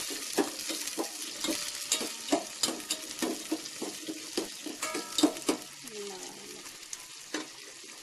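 Shallots, green chillies and garlic sizzling in hot oil in a stainless steel pot while a spoon stirs them, scraping and clinking against the pot's side. The stirring strokes stop about six seconds in, and the steady sizzle carries on.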